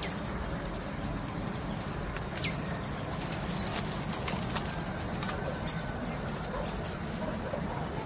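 Insects shrilling steadily, two unbroken high tones, over a low rumbling background noise, with a few brief sharp clicks.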